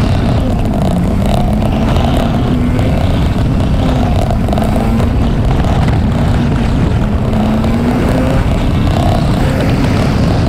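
Honda Varadero 125's small V-twin engine running under way, its pitch rising and falling with the throttle through the bends, over a steady rumble of wind on the microphone.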